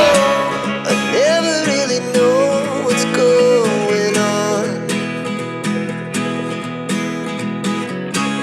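Background music with acoustic guitar and a melody line that slides up and down in pitch, taking over from a louder rock song at the start.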